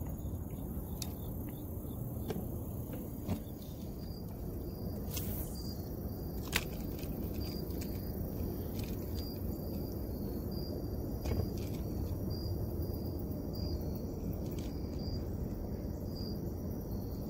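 Insects chirping in a high, evenly repeated pulse over a steady low rumble of outdoor background noise, with a couple of sharp clicks, one about three seconds in and a louder one about six and a half seconds in.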